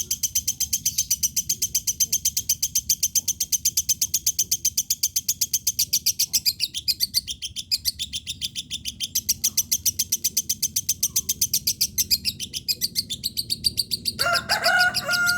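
Lovebird singing a long, unbroken 'gacor' song: rapid, evenly repeated high chirps, about eight a second. Near the end a separate steady tone comes in over it.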